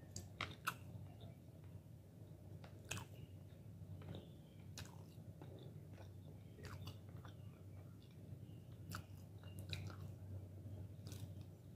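Close-up chewing and biting of chicken meat, with wet mouth clicks and smacks at irregular intervals. A steady low hum runs underneath.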